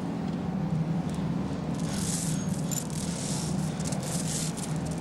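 A steady low machine hum, with bursts of high rattling and scraping from about two seconds in.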